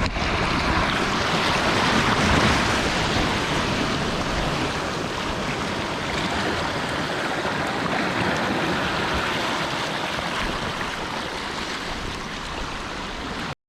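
Sea surf washing against a rocky shore: a steady rushing that swells about two seconds in, then cuts off abruptly near the end.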